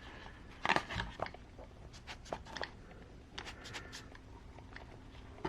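Scattered light clicks and taps of a small 1/18-scale plastic RC truck being handled and turned over, with a faint steady hum underneath.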